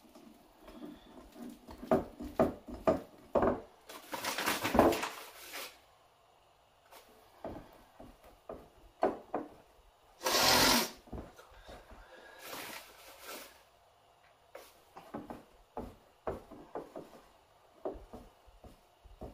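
Flour-and-water tortilla dough being mixed in a bowl: irregular knocks and scraping, with two longer, louder scrapes about four and ten seconds in.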